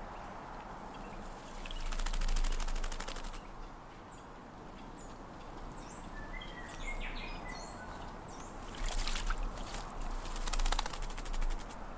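A tūī bathing in a water bowl: three bursts of rapid wing-flapping and splashing as it shakes its feathers, near the start and twice near the end. Short high chirping bird notes sound in between.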